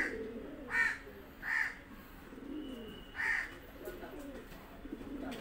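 Pigeons cooing, low wavering coos, broken by four short higher-pitched bird calls that are the loudest sounds: three in quick succession at the start and one more about three seconds in.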